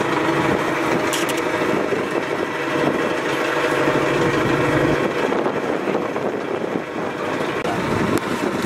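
Outboard motor of a river pirogue running steadily under way, its note changing about five seconds in.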